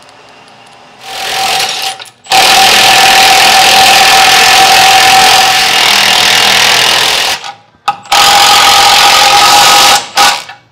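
Cordless impact wrench hammering on suspension bolts, tightening the upper control arm mounting onto the frame. It starts briefly about a second in, then runs in two long bursts of about five seconds and two seconds with a short break between.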